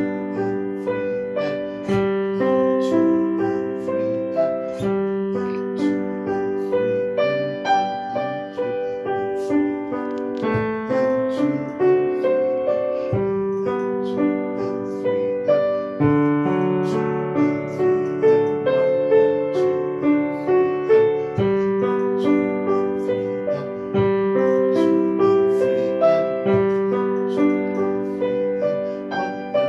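Solo piano playing a gentle melody over held low chords at a steady, even pulse.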